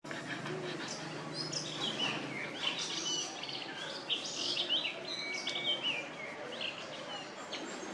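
Birds chirping and calling in short, quick, high notes that glide up and down in pitch, many in a row.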